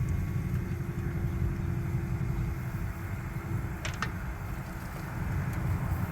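Steady low rumble, as of an engine running, with a faint steady hum that fades out about four seconds in and two short clicks just before it.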